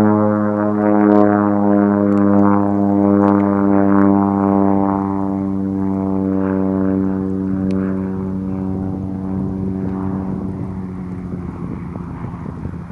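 De Havilland Canada DHC-2 Turbo Beaver floatplane in flight overhead, its PT6A turboprop engine and propeller giving a steady, deep hum with many overtones. The sound fades over the last few seconds as the plane turns away.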